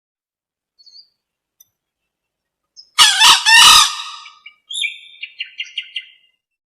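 Green junglefowl hen calling: a loud, harsh call of three quick notes about three seconds in, then a quick run of short chirping notes. It is a lure call used to draw green junglefowl cocks.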